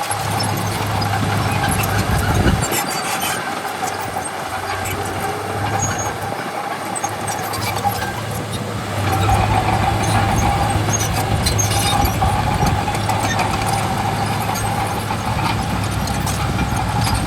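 Bulldozer's diesel engine running under load, with a steady whine above the engine drone and scattered metallic clanks. It gets louder about nine seconds in.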